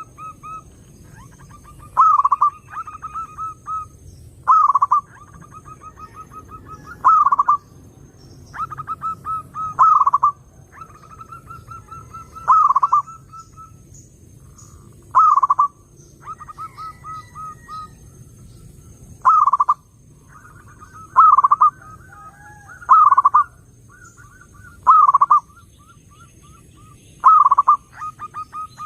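Zebra dove cooing: repeated phrases of quick staccato notes, each ending in a louder coo, about every two to three seconds.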